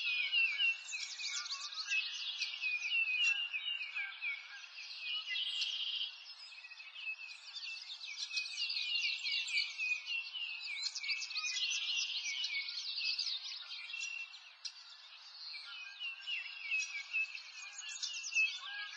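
A chorus of songbirds singing, with many quick chirps and trills overlapping continuously.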